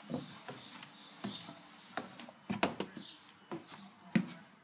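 Footsteps going down steep wooden stairs: a series of uneven knocks, about eight of them, the loudest near the end.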